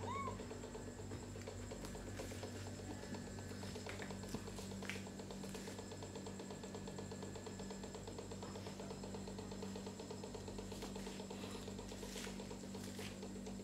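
Quiet room tone: a steady low electrical hum, with a few faint taps and one brief high chirp right at the start.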